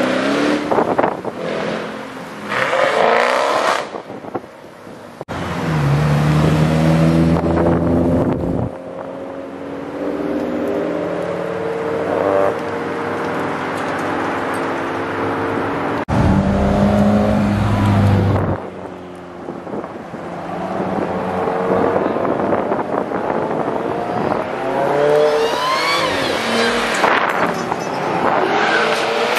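A series of cars accelerating hard away one after another, engines revving and climbing in pitch through the gears, the sound changing abruptly between cars. Among them a Dodge Challenger pulling away at the start and an Audi sedan accelerating through its gears near the end.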